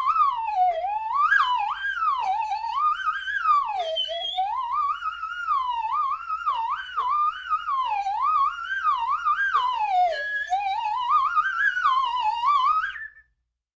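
A single musical tone sliding and wavering up and down in pitch in an eerie, melody-like line, used as a comic sound effect; it cuts off suddenly near the end.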